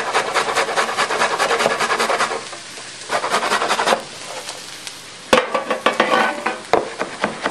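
Carrot being grated on a stainless steel box grater, in rapid, even rasping strokes that stop about two seconds in and come back briefly around three seconds. Near the end a sharp knock and a few irregular knocks and scrapes follow.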